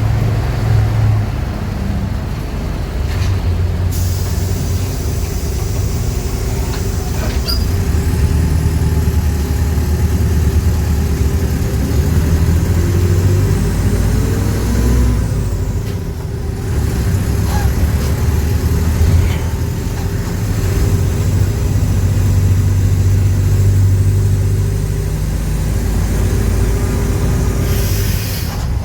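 Mercedes-Benz OF-1418 bus's front-mounted diesel engine running, its drone rising and falling with the revs. A steady hiss sets in about four seconds in.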